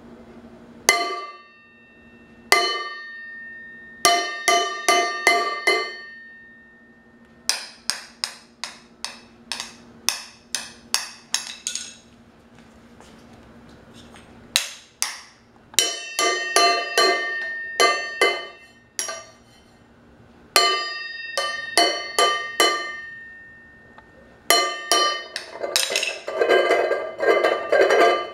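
Stainless steel cooking pot struck as a drum with a wooden spoon and with bare hands, each hit ringing metallically. It starts as two single strikes, then runs in irregular bursts of quick beats with short pauses between them, densest near the end.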